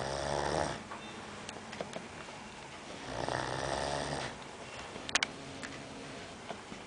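A man snoring in his sleep: one snore ends just under a second in and another runs from about three seconds in for over a second. A few sharp clicks come a second or so after the second snore.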